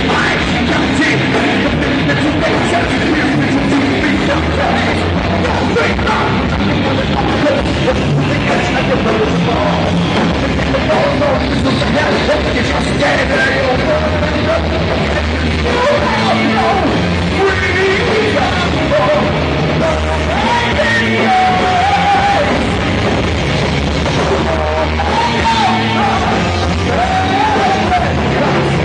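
Rock band playing loud live, with drums, guitar and bass, and a vocalist singing and yelling over them, the voice most prominent in the second half.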